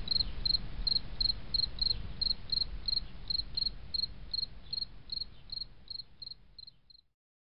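Cricket-like insect chirping, even and about three chirps a second, over a low steady rumble. It fades and stops about seven seconds in.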